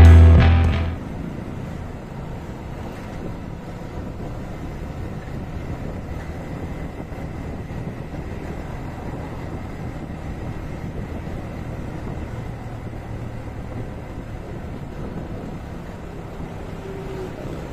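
Intro music that cuts off about a second in, then the steady running of a motorcycle being ridden along a road, its engine mixed with road and wind noise.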